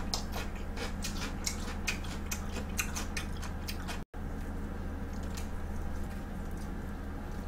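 Close-miked chewing of a bite of pizza crust: quick crunchy clicks for the first three seconds, sparser after a brief gap of silence about four seconds in, over a steady low electrical hum.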